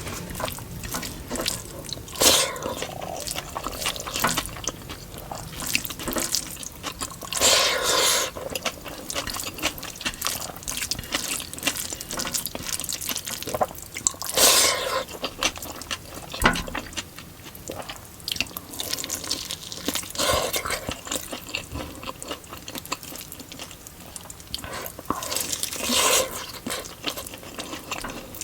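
Close-miked wet eating sounds of chicken biryani with raita eaten by hand: many small moist clicks of chewing and smacking, with a louder squelchy burst every five or six seconds.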